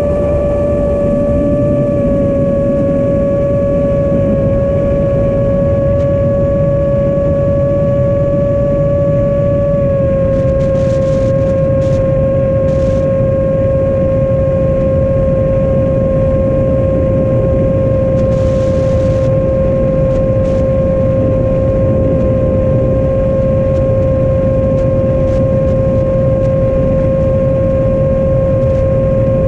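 Long-range 7-inch FPV quadcopter's motors and propellers whining at a steady cruise pitch, heard from a GoPro riding on the drone, over a steady low rush. The pitch eases slightly lower twice, about two and ten seconds in.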